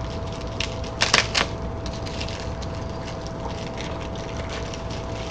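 Handling noise from unpacking a digital postal scale's box: light rustling and small ticks, with a quick run of three sharp clicks or knocks about a second in, over a faint steady hum.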